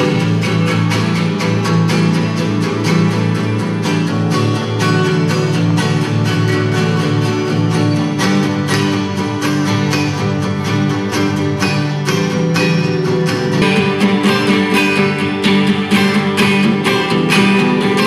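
Acoustic guitar music, played with quick, closely spaced picked notes over sustained chords.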